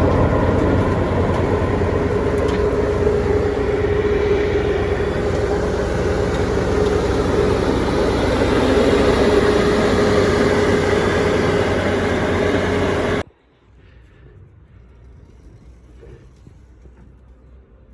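Heizohack HM 6-300VM wood chipper running steadily at speed, a loud machine noise with a steady hum. It cuts off abruptly about 13 seconds in, leaving only faint low background noise.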